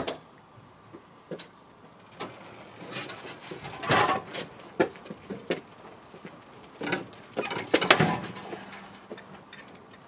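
Motorcycle being pushed up a metal ramp onto a towbar-mounted rack, with clanks, knocks and rattles of the tyres and frame against the steel rack. They come in two clusters, about four and about eight seconds in. The engine is not running.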